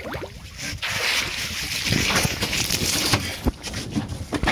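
Water splashing and sloshing as a large flying squid thrashes in a landing net at the surface beside the boat.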